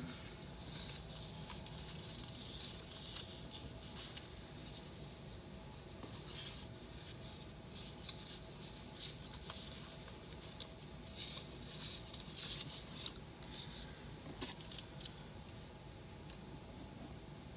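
Soft, irregular paper rustling and scratching of planner stickers being handled, peeled and pressed onto the page, with a few faint clicks.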